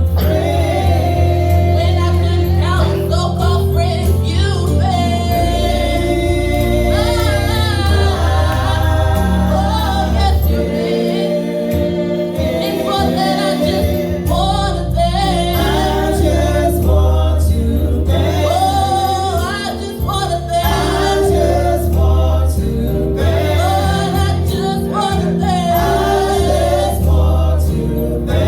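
Gospel choir singing over instrumental accompaniment with a sustained bass line.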